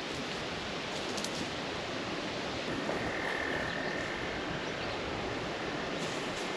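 A frog trilling once, a steady high note lasting about a second and a half, about three seconds in, over a steady rushing outdoor background noise.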